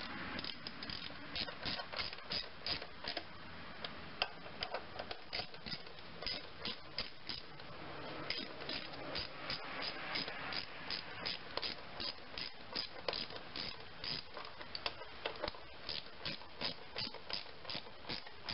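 Socket ratchet wrench clicking in quick, uneven runs as the 10 mm bolts on the engine's intake air cover are turned in.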